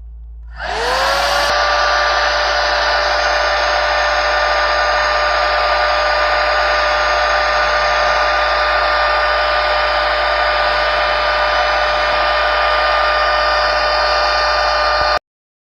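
1000 W electric rotating hot-air brush switched on: its motor whine rises quickly and settles into a steady whine over a loud rush of air, then cuts off suddenly near the end.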